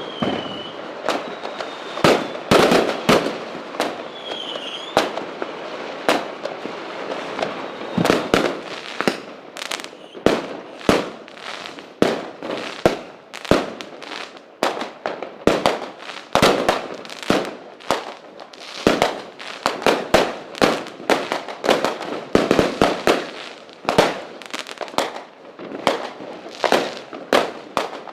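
Diwali fireworks: rockets and firecrackers bursting in quick succession, dozens of sharp bangs over a crackling background, coming several a second in the second half. A couple of whistling rockets are heard in the first few seconds.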